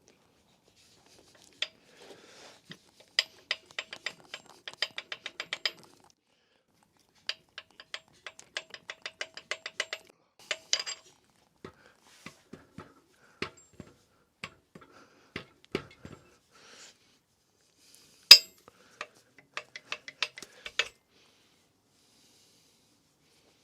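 Hand tools working on the connecting-rod caps of the Golf GTI engine: two runs of quick, evenly spaced metallic clicks, then scattered single knocks and clinks, one loud sharp clank about eighteen seconds in, and a last short run of clicks.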